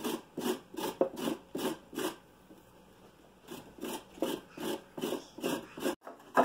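A carrot being grated on a stainless-steel box grater: rhythmic rasping strokes, about three a second, with a pause of about a second and a half in the middle before the strokes resume.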